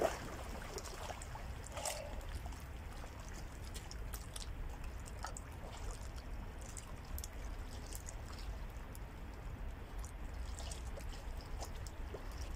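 Faint splashing and trickling of water as a person swims in an ice hole, with scattered small splashes and a slightly louder splash about two seconds in. A steady low rumble runs underneath.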